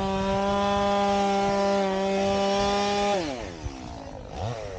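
Two-stroke chainsaw held at high revs, then the throttle is released about three seconds in and the revs fall away, with a short rev back up near the end.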